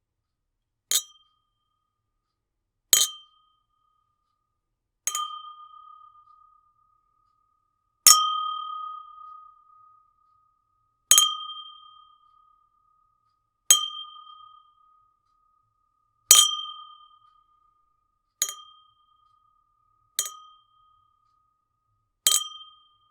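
Two champagne glasses clinked together ten times, a few seconds apart. Each clink rings on with a clear, steady tone that dies away over a second or two.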